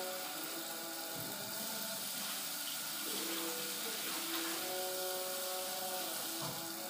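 Kitchen tap running steadily into a steel sink as cut potatoes are rinsed in a pan under it.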